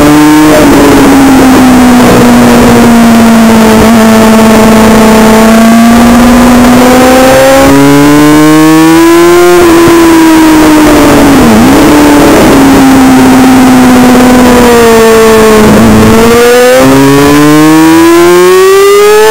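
Suzuki GSX-R600 inline-four race engine heard onboard at race pace: its pitch climbs through the revs in steps, then falls away slowly for several seconds with one quick dip about two-thirds in, and climbs hard again near the end. A steady rushing noise runs underneath.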